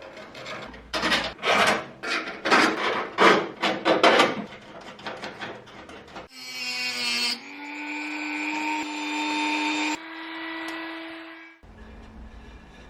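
Quick rasping strokes of a hand tool working material, about three a second, then a small electric power tool running with a steady whine that shifts pitch twice before stopping.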